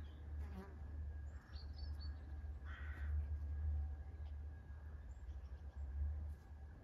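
Outdoor birdsong: small birds chirping and one hoarse caw about three seconds in, over a steady low rumble of wind on the microphone.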